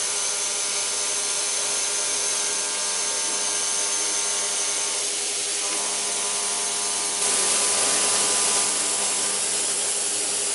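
Vertical CNC machining centre milling a metal block with a small end mill: the spindle runs with a steady whine of several held tones over a hiss of cutting noise. About seven seconds in, a louder hiss comes in over it.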